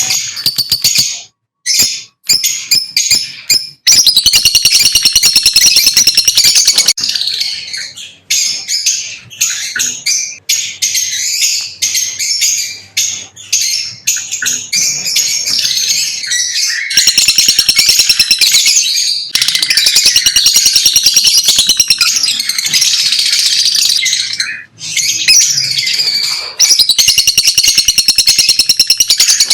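Lovebirds chirping and chattering in a fast, nearly unbroken stream of high, shrill notes, with several loud stretches of rapidly repeated chirps and a few brief pauses.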